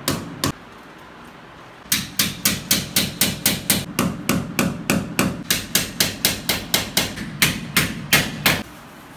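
Hammer blows against a steel air-conditioner wall-mounting plate. Two blows at the start, then after a short pause a steady run of quick blows, about three or four a second, stopping about half a second before the end.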